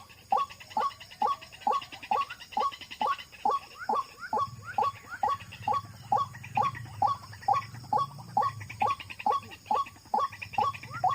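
White-breasted waterhen calling: a long, even run of short rising 'wak' notes, about two and a half a second. A low hum joins about four seconds in.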